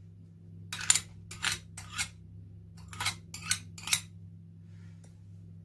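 Spoon and fork clinking and scraping against a glass dish and a metal mixing bowl as a spoonful of mayonnaise is worked off into the flour: two quick runs of about four sharp taps each, a second or so apart.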